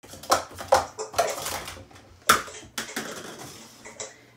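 Plastic sport-stacking cups clacking and clattering against each other and the mat as they are handled and set down, with a string of sharp clacks that thin out toward the end.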